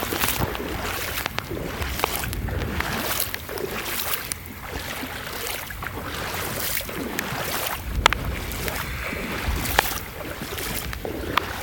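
Legs wading through shin-deep floodwater, the water sloshing and splashing in uneven surges with each step. Wind buffets the microphone, and there are a few sharp clicks in the second half.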